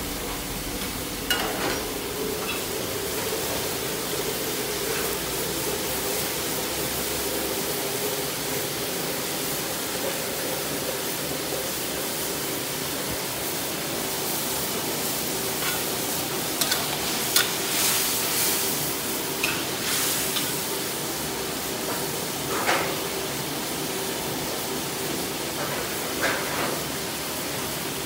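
Steady hiss of gas wok burners under a simmering stew, with a few sharp clinks and scrapes of a metal ladle against the steel wok, several of them bunched together a little past the middle.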